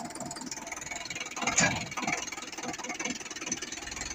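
Preet 6049 tractor's diesel engine running steadily with an even pulsing beat, and one louder thud about one and a half seconds in.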